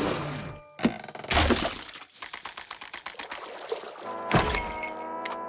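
Cartoon sound effects: a thump, then a crash about a second and a half in, and a quick run of rattling clicks with a few high chirps. Another hard crash comes past four seconds, after which a held musical chord sounds.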